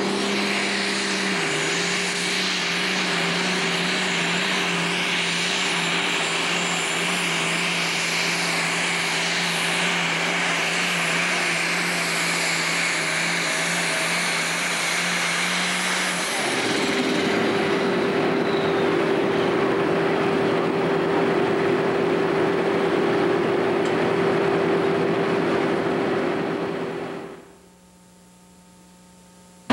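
Super stock pulling tractor's turbocharged diesel engine running flat out under load, with a high whine over a steady engine note. About two-thirds of the way through, the engine note shifts higher, and the sound cuts off abruptly near the end.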